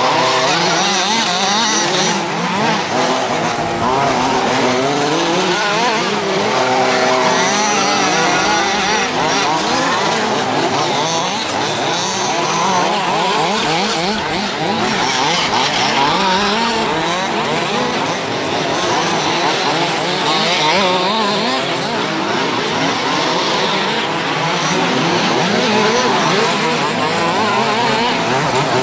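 Several small two-stroke petrol engines of 1:5-scale off-road RC buggies racing together, buzzing and revving up and down in overlapping high-pitched whines as the cars accelerate and slow for corners.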